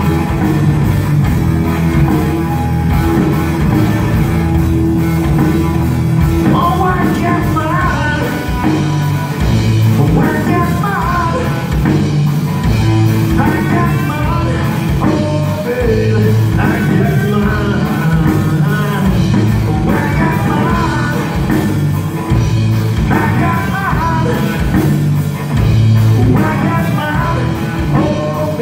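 Live rock band playing, with electric guitars, bass and drum kit. A singer's voice comes in about six seconds in.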